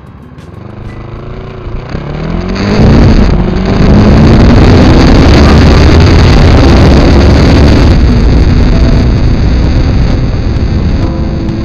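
Motor vehicle engine revving up, its pitch rising, then running loudly for several seconds before easing off near the end.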